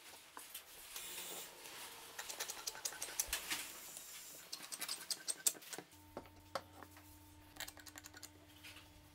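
Quick light clicks and taps of plywood parts and a metal screw handle as a homemade corner clamp is handled and its jaw screw is turned. About six seconds in, the clicking mostly stops and a faint steady hum comes in.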